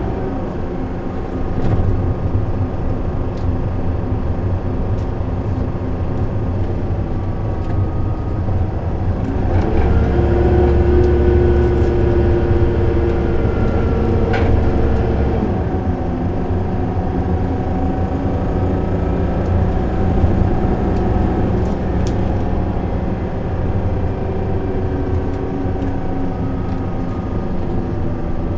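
Isuzu Erga city bus's diesel engine heard from inside the cabin, running under load over a steady low drone. The engine note steps up in pitch about ten seconds in and drops back a few seconds later. A thin whine sits above it, the abnormal 'vacuum cleaner' noise this bus is known for.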